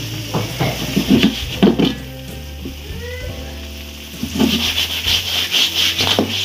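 Whole lobsters sizzling as they fry in butter in a wok. Shells knock against the metal as the wok is shaken, and the sizzling grows louder after about four seconds.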